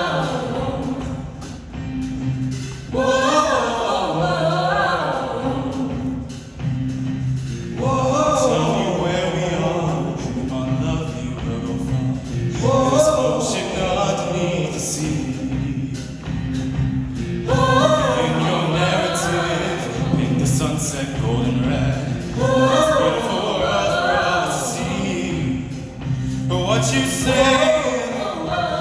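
Show choir singing in phrases of several seconds each over instrumental accompaniment, with sustained low notes and sharp percussive hits.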